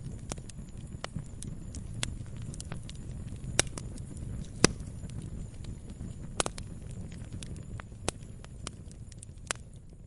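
Log fire burning: a steady low rumble with irregular crackles and snapping pops, two of them sharper and louder around the middle.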